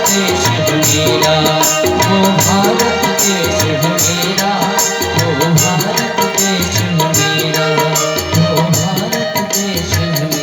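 Instrumental folk-style music: tabla playing a rhythm under sustained melody notes, with a steady jingling rattle percussion keeping time.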